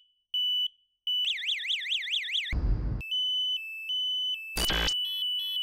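A quick run of piezo buzzers and sirens sounding one after another: two short beeps, a fast warbling siren sweeping up and down several times a second, an alternating two-tone beep, then a steady tone with pulses near the end. Short bursts of noise break in between them.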